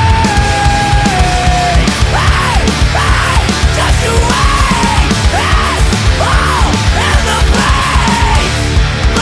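Loud, heavy post-hardcore rock music with distorted guitars and drums. A held high note steps down in pitch and ends about two seconds in, then short arching notes repeat more than once a second.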